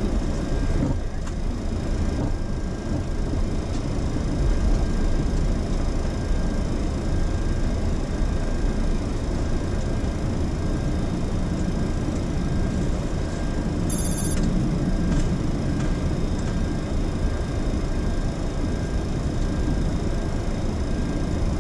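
Steady flight-deck noise of a Boeing 737-800 taxiing: a low rumble and hiss from the idling engines and cabin airflow, with faint steady high whines. A brief high electronic blip sounds about fourteen seconds in.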